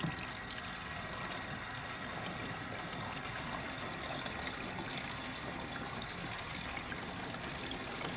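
Gasoline pouring in a steady trickling stream from a plastic gas can's spout through a funnel into a metal boat fuel tank, opening with a light knock.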